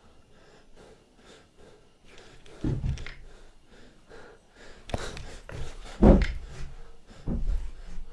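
A man breathing hard close to the microphone: a handful of short, loud breaths, the loudest about six seconds in.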